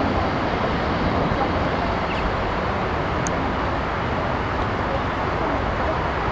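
Steady, even roar of distant jet engines and road traffic around an airfield, with one brief high chirp about three seconds in.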